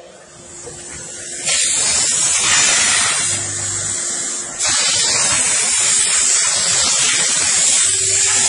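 A steam car-wash machine's combined steam-and-vacuum gun jetting steam with a loud, steady hiss. It starts about a second and a half in, breaks off briefly around the middle and resumes at once. A low hum from the machine comes and goes beneath it.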